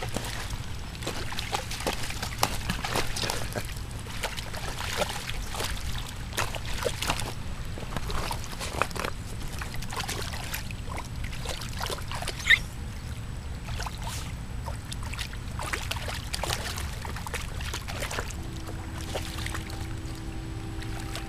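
A dog splashing and wading in shallow water as it goes after a large carp, with irregular splashes throughout over a steady low rumble. One sharp, louder splash comes about twelve seconds in.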